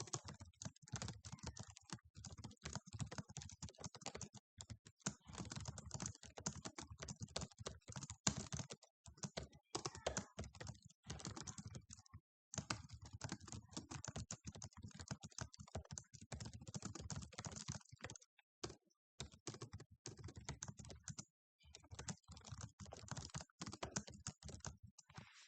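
Fast, continuous typing on a computer keyboard: a dense run of keystrokes broken by a few short pauses, stopping just before the end.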